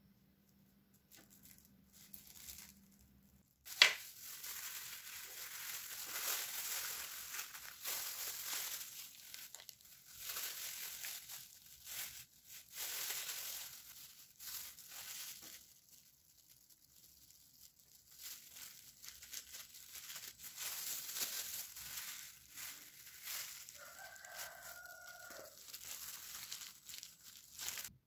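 Plastic sheet and plastic knife crinkling and rustling in stretches as a soft layered steamed cake is sliced into strips, with a sharp click about four seconds in. A rooster crows faintly near the end.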